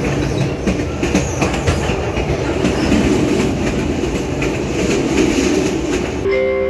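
Passenger train running at speed, heard from inside the carriage: a steady rushing rumble with wheels clattering on the rails in irregular clicks. Near the end it cuts off and a steady tone begins.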